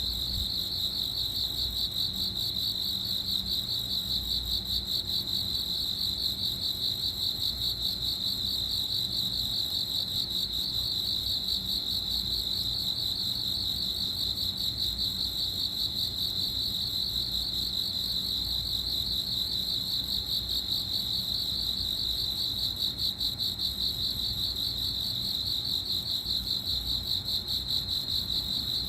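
Cricket chirping: one continuous high-pitched, rapidly pulsing trill at a steady level, which cuts off abruptly at the end.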